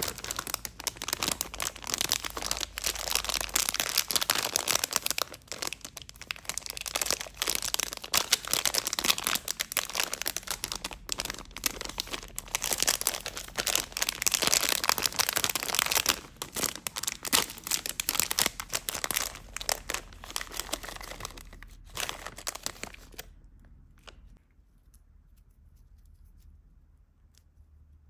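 Plastic bag of sour gummy bears crinkling as it is handled and torn open: dense crackling and tearing that stops fairly suddenly about three-quarters of the way through, leaving only a few faint ticks.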